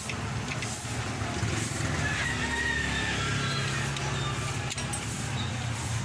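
Toyota Corolla 'Big Body' engine running steadily with a low hum. A rooster crows in the background about two seconds in.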